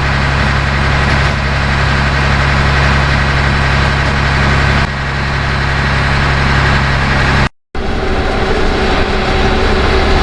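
Tractor engine running steadily while driving. The sound cuts out for a split second about seven and a half seconds in, then the engine goes on.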